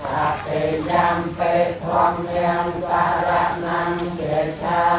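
Buddhist chanting in Pali, men's voices intoning verses in a slow, drawn-out melody, the chant of taking the precepts.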